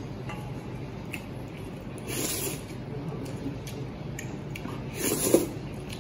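A man slurping instant noodles from a bowl with chopsticks: two loud slurps, about two seconds in and again near five seconds, the second the louder.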